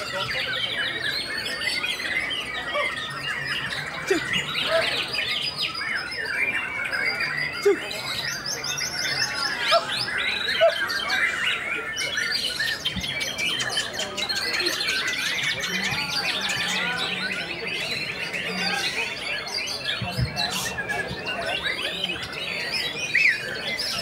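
A dense chorus of caged songbirds singing at once, with a white-rumped shama (murai batu) among them. Many overlapping warbles, trills and whistled glides run on without a break.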